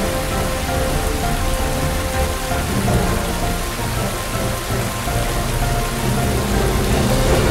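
Steady rain-like hiss and patter of water falling from a circus water stage's fountains and water curtain into its pool, with faint held music notes underneath.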